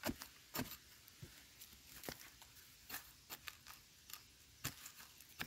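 Metal digging blade striking and scraping into dry, stony soil while digging out a wild yam, about eight sharp strikes unevenly spaced.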